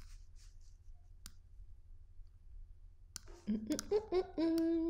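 A few sharp computer-mouse clicks. Then, about three and a half seconds in, a woman hums a thoughtful "hmm" that steps up in pitch and holds on one steady note to the end.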